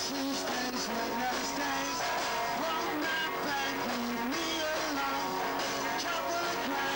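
Live rock band playing, with electric guitar.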